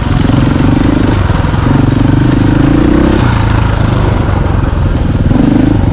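Motorcycle engine running while riding, its buzzing note uneven and dipping in places, with heavy wind noise on the microphone.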